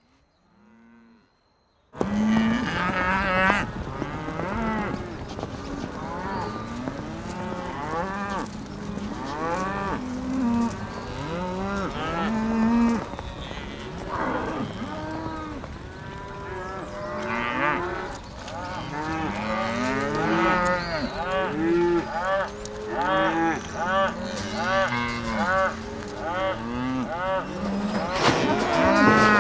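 A herd of cattle lowing, many moos overlapping one another without a break. It starts suddenly about two seconds in, after a quiet opening.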